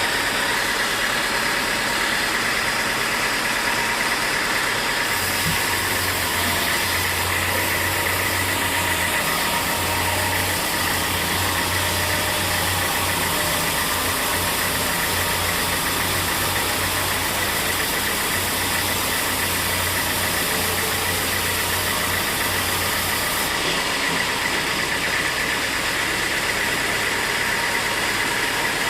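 Sawmill machinery running steadily, a dense mechanical noise with a steady high whine. A low engine-like hum joins about five seconds in and drops away a few seconds before the end.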